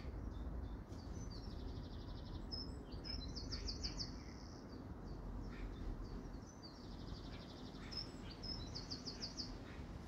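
A garden songbird sings the same short phrase twice, about five seconds apart, each a run of repeated notes ending in a quicker series of higher notes. A low steady rumble of background noise lies underneath.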